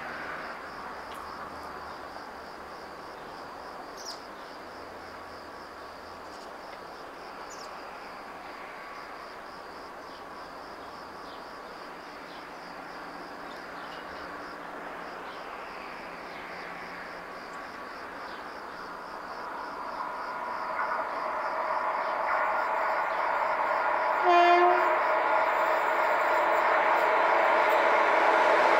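Renfe 289-series electric locomotive approaching with a train of vintage coaches. Its rumble on the rails grows steadily louder through the last third, and one short horn blast sounds about three-quarters of the way through.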